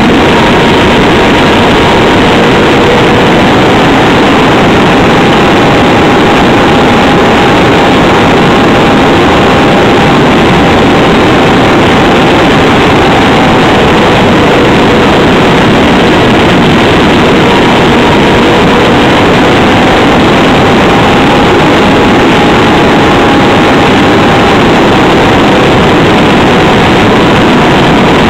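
Nitro-fuelled two-stroke glow engine on a tuned pipe, running loud and steady in flight, heard from a camera mounted on the combat RC wing, with heavy wind rush; its pitch drifts gently up and down.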